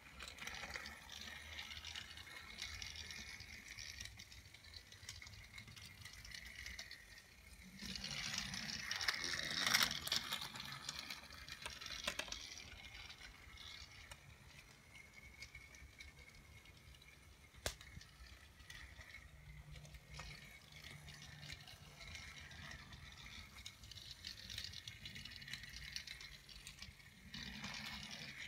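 Battery-powered Thomas TrackMaster toy engine running along plastic track, its small motor whirring and rattling steadily. It gets louder for a couple of seconds about a third of the way in, and there is a single sharp click around the middle.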